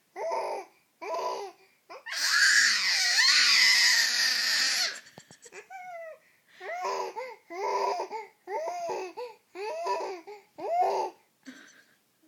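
A baby making rhythmic crooning vocal noises: short pitched 'ah' syllables about half a second each. Between them, about two seconds in, comes a loud, raspy squeal lasting about three seconds.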